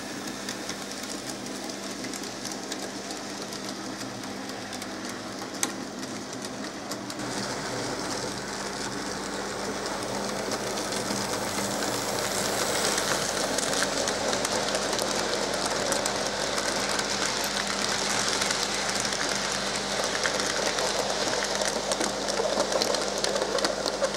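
N gauge model Class 46 diesel and its long train of freight wagons running along the track: a steady whir with fine rapid clicking of wheels over rail joints. It grows louder from about seven seconds in as the train comes close, with one sharp click about six seconds in.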